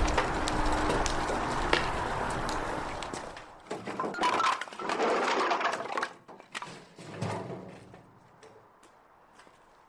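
A metal wheelbarrow rolling over paving stones, then a load of split firewood tipped out of it, the logs tumbling onto the pavers in a run of wooden knocks and thunks from about three and a half to seven and a half seconds in.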